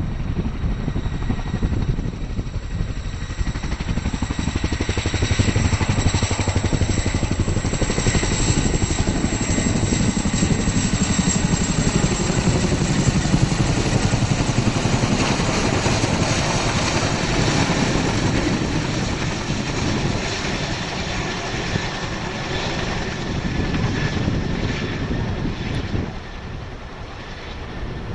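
Boeing CH-47 Chinook tandem-rotor helicopter flying low past: the rapid chop of its two rotors, getting louder as it comes close and easing off as it flies away near the end.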